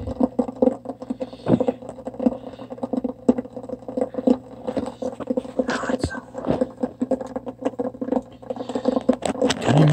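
Liquid heating in a 2000 ml borosilicate flask on an electric hot plate, ticking and crackling irregularly as it nears the boil, over a steady low electrical hum.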